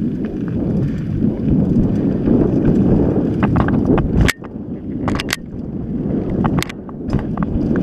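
Mountain bike riding fast over dirt singletrack: wind rushing over the action-camera microphone and a steady rumble of tyres on the trail, with several sharp clicks and rattles of the bike over bumps, the loudest about four seconds in.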